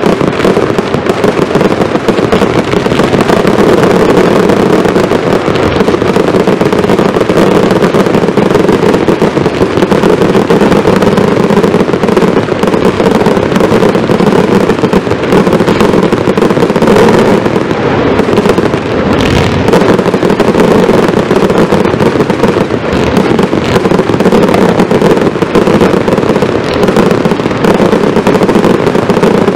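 Fireworks firing in a dense, continuous barrage: ground-fired batteries launching and bursting one on top of another in an unbroken stream of bangs and crackle, with a few heavier bangs about two-thirds of the way in.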